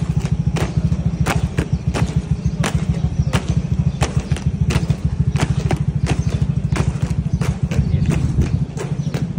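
Boots of a squad of uniformed guards marching in step on stone paving, with crisp, even heel strikes about one and a half a second. A steady low rumble lies underneath.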